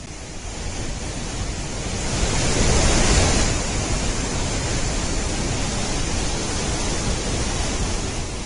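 Rushing floodwater: a steady, even rush of churning water that grows louder about three seconds in and then holds.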